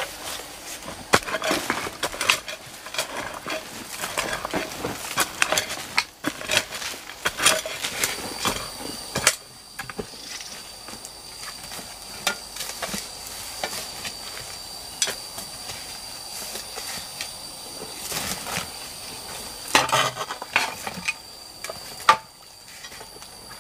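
A long-handled hoe chopping into loose red soil, repeated strikes and scrapes for the first nine seconds or so. From about eight seconds on a steady high thin whine runs in the background, with a few more knocks and rustles near the end as the hoe and a woven basket are lifted.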